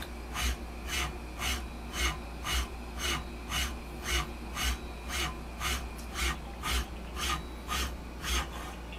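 Teknic ClearPath SDHP servo motor spinning a ball screw at 3600 rpm and more, shuttling the linear-rail carriage rapidly back and forth: a short whirring rasp with each stroke, about two a second, over a steady low hum.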